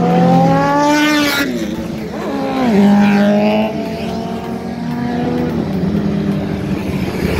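Superbike engine revving hard, its pitch climbing for about a second and a half, then dropping as the bike passes and running on at a steadier lower pitch.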